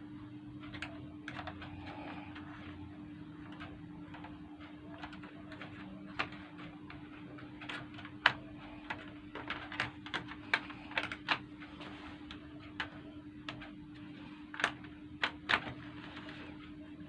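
Scattered sharp clicks and taps, like laptop keys and case being handled, in small irregular clusters over a steady low hum.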